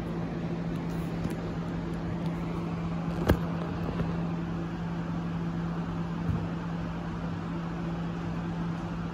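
A steady machine hum with a low steady tone, and one sharp knock about three seconds in, as the camera is set down.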